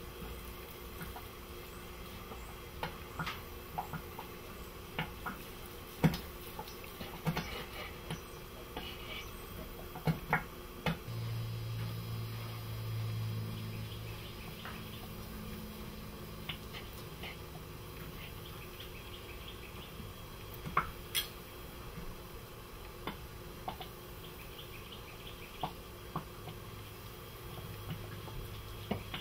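A knife slicing through a cooked chicken breast, the blade tapping and clicking against a ridged wooden cutting board at irregular moments. A low hum comes in about eleven seconds in, fades after a few seconds, and returns near the end.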